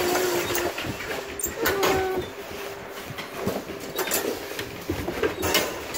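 Wire dog crate door being unlatched and opened, its metal grille rattling and clanking in a string of sharp clicks and knocks.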